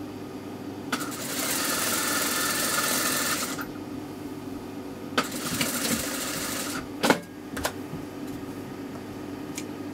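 Toyota industrial sewing machine stitching in two runs, the first about a second in and lasting some two and a half seconds, the second around five seconds in and shorter, over the steady hum of its motor. A couple of sharp clicks follow near seven seconds, scissors snipping the thread at the needle.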